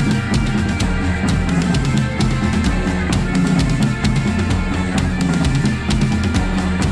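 Mapex drum kit played in a steady rock beat, bass drum, snare and cymbals, over a loud backing track with bass and guitar.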